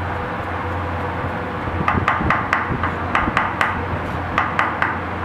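Steel cleaver chopping spring onions on a thick wooden chopping block: quick knocks in short runs of three to five, starting about two seconds in, over a steady background hum.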